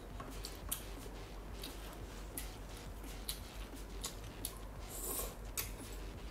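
Eating sounds: irregular wet clicks and smacks of chewing slippery spicy glass noodles, with a short slurp about five seconds in.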